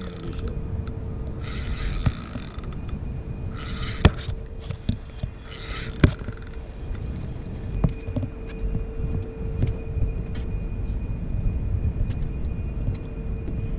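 Spinning reel being cranked while a hooked fish pulls on the line, with wind rumbling on the microphone. A faint steady hum runs under it, with a few short bursts of hiss and scattered sharp clicks.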